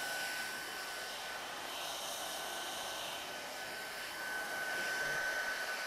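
CV1981 heat gun blowing hot air steadily, a continuous rush with a thin high whine, as it heats a heat-shrink moulded part to recover it.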